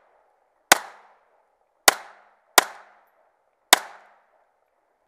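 Four shots from a semi-automatic pistol fired at targets, spaced roughly a second apart with the middle two quicker, each sharp crack trailing off briefly.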